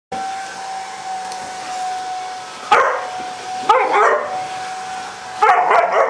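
Hair dryer running on its cool setting with a steady whine, while a five-month-old Rottweiler puppy barks at it in three loud bursts.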